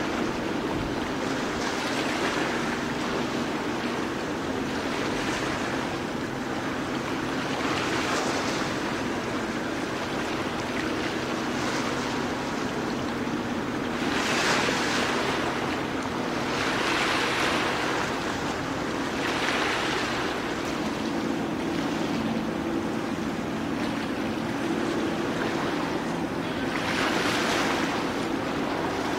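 Sea waves washing and surging every two to three seconds over the steady low drone of a ship's engine.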